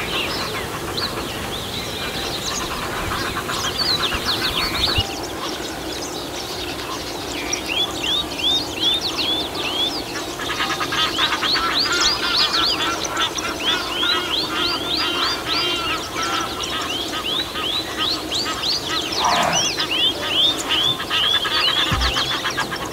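Wild birds calling, with runs of short, quickly repeated falling notes, a few a second, that come and go throughout.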